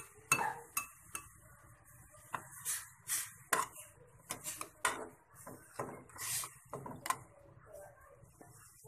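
Metal tongs stirring and lifting instant noodles in an aluminium saucepan, making irregular clinks and scrapes against the pot.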